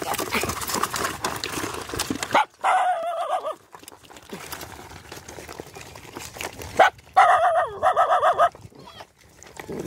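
Paper wrapping rustling and crackling as food is shaken out, then a pack of dogs and puppies eating, with two spells of high, wavering whining: one about two and a half seconds in, the other about seven seconds in.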